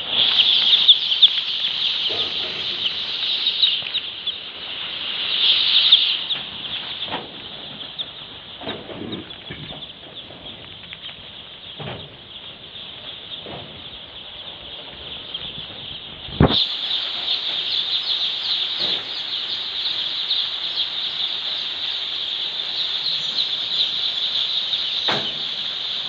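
A crowd of day-old chicks peeping all together, a dense, continuous high-pitched chorus of cheeps. It eases off for a while, then turns suddenly louder again about two-thirds of the way through.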